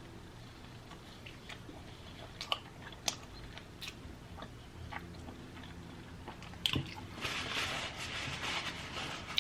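Close-miked chewing of chili-topped food, with scattered wet mouth clicks and smacks. About seven seconds in, a louder, hissing stretch of noise lasts about two seconds.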